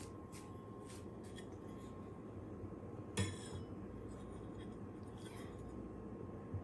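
Soft clicks and scraping of small hard objects being handled, with one sharp clink that rings briefly a little before halfway.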